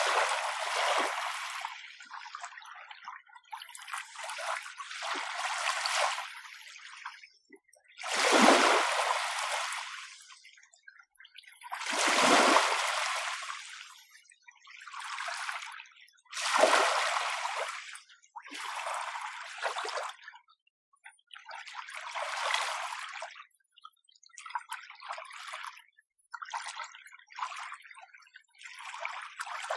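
Small, gentle sea waves washing onto the shore one after another, each a short swelling wash that fades away, every two to four seconds. Two stronger waves come about a third of the way in.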